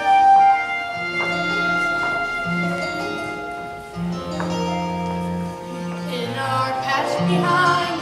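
Musical-theatre music playing: held notes over a stepping bass line.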